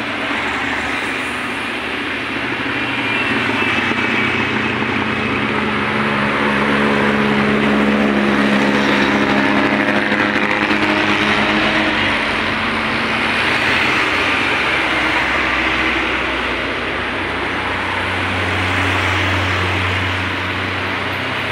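Road traffic passing close by: engines of buses, trucks, minibuses and motorcycles over steady tyre noise, swelling and fading as vehicles go past.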